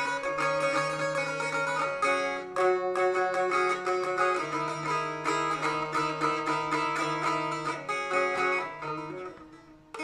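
Bağlama (Turkish long-necked saz) played solo, rapid plucked and strummed melody over a steady drone string, growing quieter near the end.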